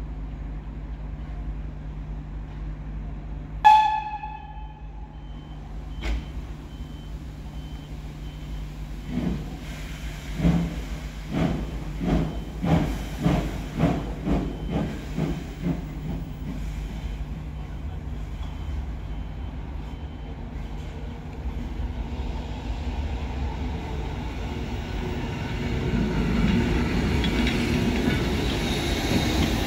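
Pt47 steam locomotive arriving: a short, sharp whistle toot about four seconds in, then a run of rhythmic exhaust chuffs about two a second. Near the end comes a growing rumble with steam hissing as the engine rolls close past.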